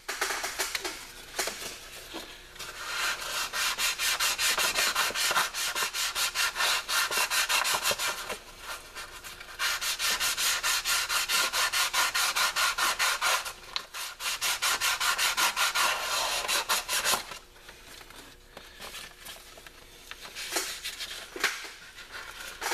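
400-grit sandpaper rubbed by hand in quick back-and-forth strokes over a metal part to clear corrosion buildup. The strokes pause briefly twice and go softer for a few seconds near the end.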